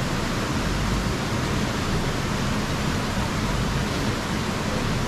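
Off-road 4x4 vehicle driving over rough ground: a steady low rumble under a constant rushing noise.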